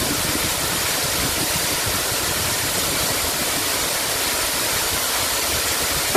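Steady, even rushing noise with no tone or rhythm, which cuts off abruptly at the end.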